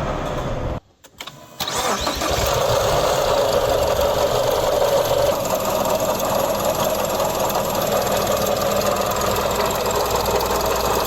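Car engine running with the unusual noise its owner complains of at start-up. The sound drops out briefly about a second in and then runs steadily. The owner suspects a cracked drive belt or a failing water pump bearing.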